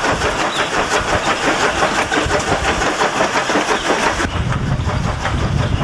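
A harsh, rattling diesel engine sound effect that starts abruptly and cuts off about four seconds in, after which a locomotive's steady running rhythm returns.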